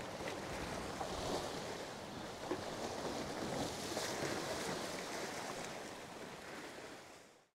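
Sea surf washing against rocks, with some wind: a steady wash of noise that fades out near the end.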